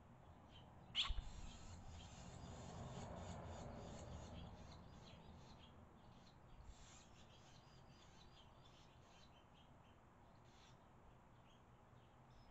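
Faint, short chirps of barn swallows at the nest, scattered throughout, with a sharp click about a second in and a soft low rumble that swells and fades in the first half.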